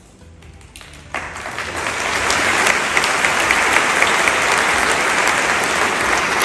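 Large audience applauding, starting suddenly about a second in and quickly building to a steady, loud ovation.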